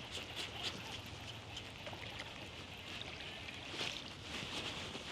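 Small splashes and trickling water beside a kayak as a hooked largemouth bass is brought in, with brief sharp drips and splashes over a steady watery hiss.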